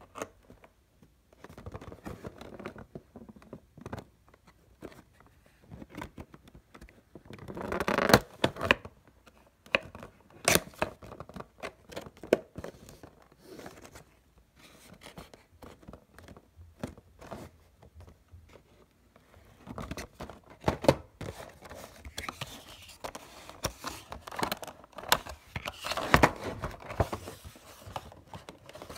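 Fingers handling a cardboard Funko Pop box, picking at and scraping its top flap and taped edge: irregular scratching, scraping and light clicks of paperboard, louder around a third of the way in and again in the last few seconds.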